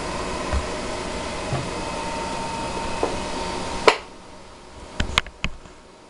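Steady background hiss with a faint steady tone, which drops away abruptly at a sharp click about four seconds in. A few small clicks follow, typical of handling.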